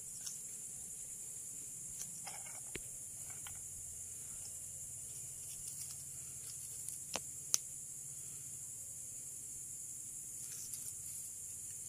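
Steady high-pitched chorus of night insects, with a few faint sharp clicks, the loudest about seven and a half seconds in.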